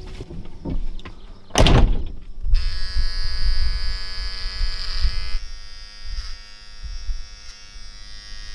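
A vehicle's side door shut with one loud thud, then an electric shaver buzzing steadily from about two and a half seconds in, its sound thinning partway through.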